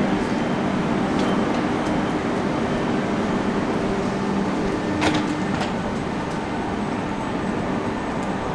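Rhaetian Railway ABe 4/4 III electric multiple unit standing at a platform, its on-board equipment giving a steady hum with a few low tones that fade after the middle. There is a single sharp click about five seconds in.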